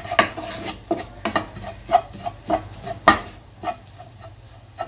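A utensil stirring and scraping a thick spice masala around a pan as it sautés, over a low sizzle. The scraping strokes come about every half second and stop a little before the end, leaving only the sizzle.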